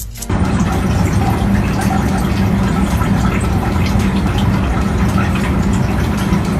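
Toilet flushing: a loud, steady rush of water with a low rumble, starting abruptly a moment in.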